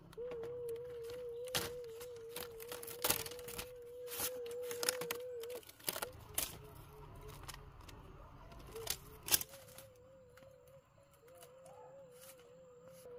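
Split bamboo strips clicking and clattering as they are handled and woven into a flat mat, in irregular taps with a few sharper knocks. A steady warbling tone runs underneath, dropping out for a few seconds midway.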